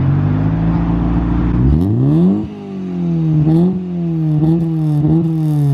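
Honda Civic EJ9 engine through its freshly fitted custom exhaust, revved by hand while parked: held steady at first, then a quick rev up about two seconds in, followed by several short throttle blips, the pitch rising and falling each time.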